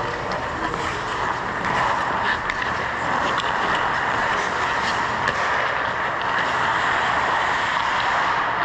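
Indoor ice rink ambience during play: a steady rushing noise with a few faint, distant clicks of sticks and puck on the ice.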